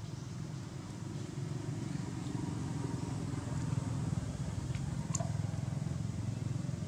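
Low, steady rumble of a motor vehicle's engine running, growing louder over the first few seconds, with a faint click about five seconds in.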